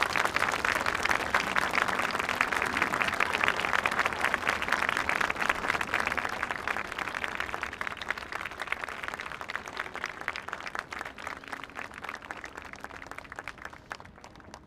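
A large crowd applauding, a dense patter of many hands clapping that holds steady, then slowly dies away over the last several seconds.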